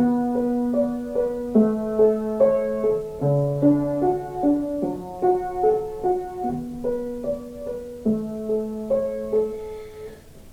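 Acoustic piano playing a gentle instrumental passage: held low notes under repeated broken-chord notes, growing softer near the end.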